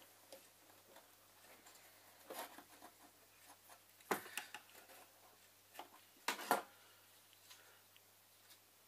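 Light clicks and taps of tiny model pieces being handled with tweezers and set down on a small wooden display shelf. The sharpest taps come about four seconds in and as a close pair at six and a half seconds. A faint steady low hum runs under them.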